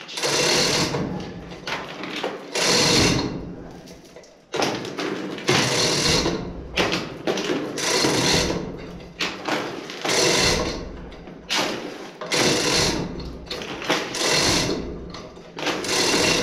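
Manual 5-ton chain hoist being hauled in repeated pulls, about one a second, its chain clattering and ratchet clicking as it strains on the blast valve, which has just broken loose from the wall.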